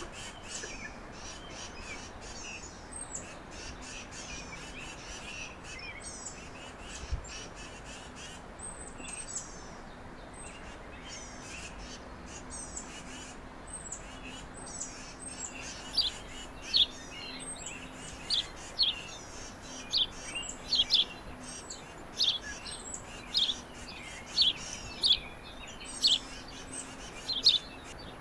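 Small songbirds chirping at a backyard feeder: many faint high chirps at first, then from about halfway louder short chirps roughly once a second.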